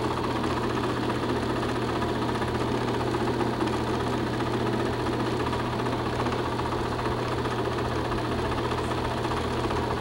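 Film projector running: a steady mechanical whir and clatter over a constant low hum.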